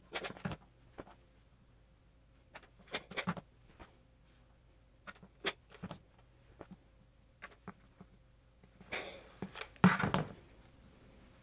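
Clothes iron pressing a folded corduroy hem: scattered soft knocks and rustles as the iron is slid over, lifted and set down on the fabric, with a louder clunk and rustle near the end.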